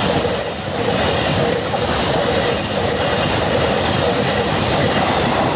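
Container freight wagons rolling past close by: a steady, loud rumble and clatter of steel wheels on the rails.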